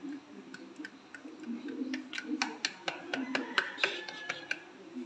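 Irregular run of sharp clicks and light clinks from kitchenware being handled at a bowl, thickest in the middle and then thinning out.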